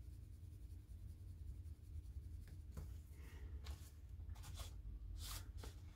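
Soft-core colored pencil scratching on paper in short, faint strokes as a swatch is colored in. The strokes come more sharply in the second half.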